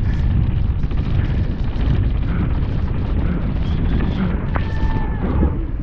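Wind buffeting the action camera's microphone and a downhill mountain bike rattling over rough trail at race speed make a dense, steady rumble. A brief held high note, a whistle or call, sounds about four and a half seconds in.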